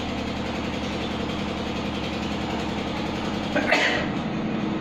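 A steady mechanical hum with a constant low tone runs throughout, and a short burst of noise comes about three and a half seconds in.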